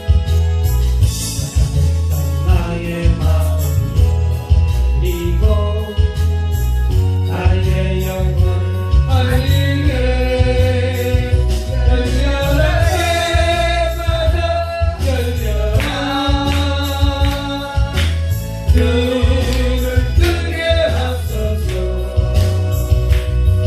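Gospel song: a singing voice over a backing track with a heavy, steady bass beat.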